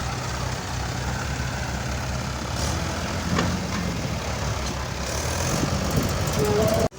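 Heavy diesel machinery running steadily at low revs, with a few faint knocks about halfway through.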